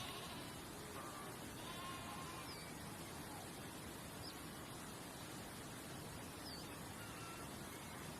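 Steady background hiss with a few faint, short bird chirps and whistles scattered through.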